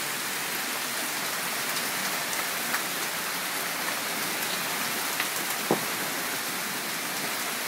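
Heavy rain mixed with hail falling steadily on a brick patio and garden foliage, with a few sharp ticks of hailstones striking, the loudest about six seconds in.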